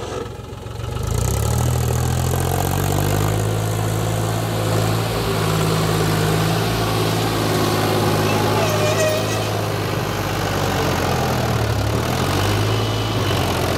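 Mahindra 265 DI tractor's three-cylinder diesel engine running under heavy load as it drags a sand-filled levelling scraper through loose sand. It grows louder about a second in, holds a steady note, then briefly sags in pitch and recovers near the end.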